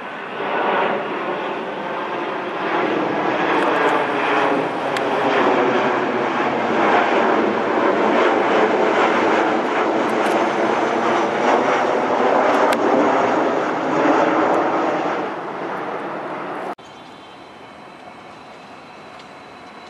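Twin-engine jet airliner passing low overhead on landing approach with its gear down, the turbofan engine noise building in the first second and its whine falling slowly in pitch as it goes over. Near the end the sound cuts off abruptly to a much quieter steady outdoor background.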